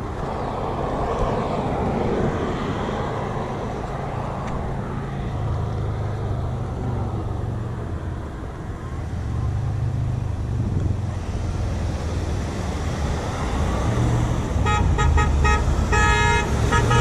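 Passing road traffic, cars' engines and tyres going by steadily, and near the end a car horn honking in a quick string of short toots.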